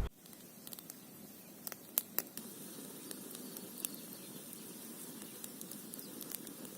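Faint steady outdoor background hiss with a few small sharp clicks and taps, the loudest about two seconds in.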